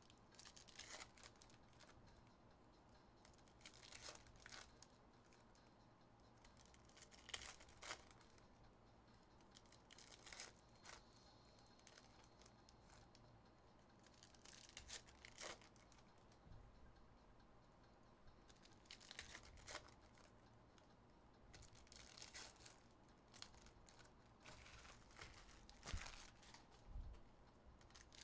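Foil trading-card packs being torn open and crinkled by hand, with cards handled in between. It comes as faint, short, irregular bursts of crackling.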